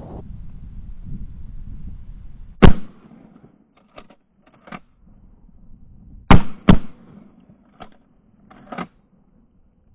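Three shotgun shots: one about two and a half seconds in, then two in quick succession about four seconds later. Lighter clacks come between and after the shots.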